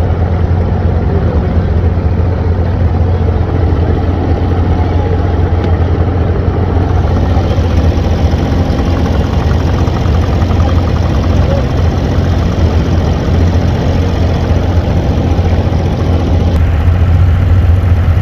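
Inboard diesel engine of a wooden abra water taxi running steadily under way, a loud, even low drone.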